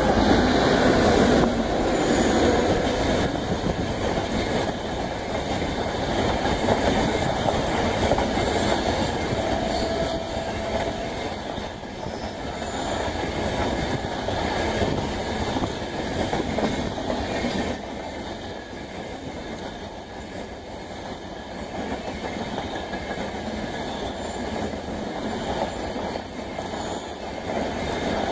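Indian Railways WAP7 electric locomotive passing at speed, loudest in the first couple of seconds. It is followed by the steady rumble and clickety-clack of red LHB passenger coaches rolling past over the rail joints.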